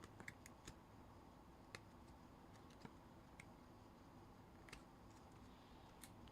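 Near silence with faint, scattered clicks and ticks of trading cards being handled and flipped through.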